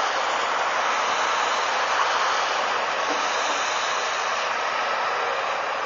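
Volvo EC290BLC crawler excavator's diesel engine and hydraulics running under load as it empties a bucket of soil into a tipper truck, a steady, even drone with no breaks.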